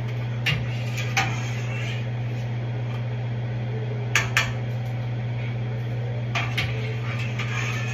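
Long metal spoon stirring a large stainless-steel stockpot, with scattered sharp clinks as it knocks the pot, a quick pair about four seconds in. A steady low hum runs underneath.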